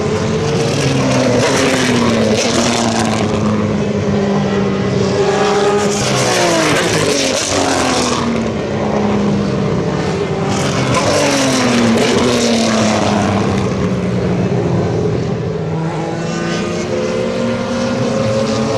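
Several single-seater race car engines passing at speed, overlapping one another, their pitch repeatedly falling as cars go by or lift off, over a steady engine drone.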